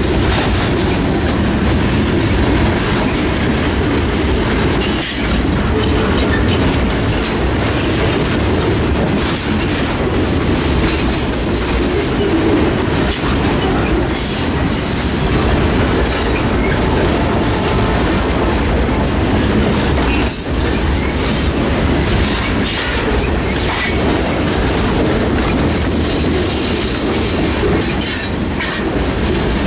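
Boxcars and refrigerator cars of a freight train rolling past close by: a loud, steady rumble of steel wheels on rail, with irregular rattles and clanks from the cars.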